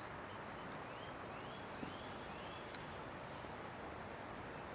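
Faint birdsong over a steady outdoor hiss: a bird repeats short high chirps that sweep downward, with a few rising notes between them. Two small ticks are heard in the middle.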